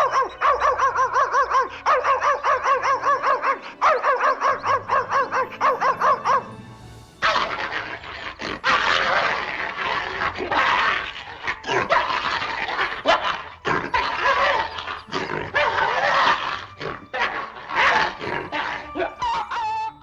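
An animal calling: rapid, evenly repeated pitched calls for about the first six seconds, then denser, rougher calls from about seven seconds in, with music.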